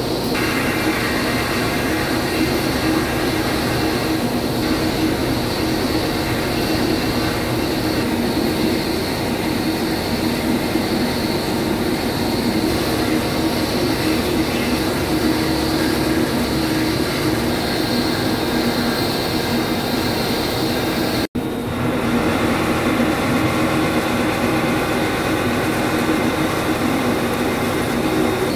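CNC boring mill spindle running a milling cutter through the steel face of a large wheel hub: a steady, continuous metal-cutting noise. It breaks off for an instant about three-quarters of the way through.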